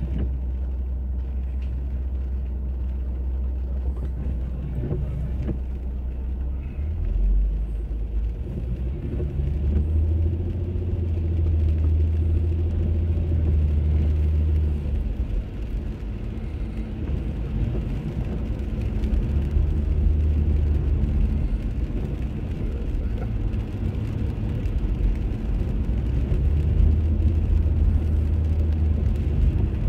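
Car cabin noise in the rain: a steady low engine and road drone that shifts as the car moves off and drives on, with tyres on wet pavement.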